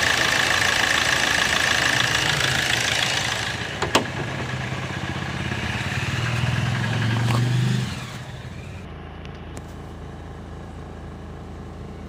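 Hyundai Verna diesel engine idling, heard at the open engine bay with its radiator cooling fan just cut out at about 90 °C. There is a single sharp click about four seconds in. About eight seconds in the sound drops suddenly to a quieter, muffled hum of the idle.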